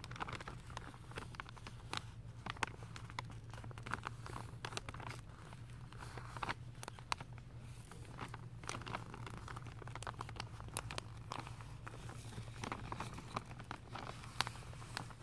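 Thin clear plastic sheeting wrapped around carpet rolls crinkling as a hand squeezes and rubs it: irregular crackles, with a steady low hum underneath.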